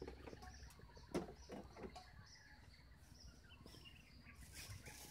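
Faint, scattered bird chirps over a quiet yard, with a single sharp knock about a second in.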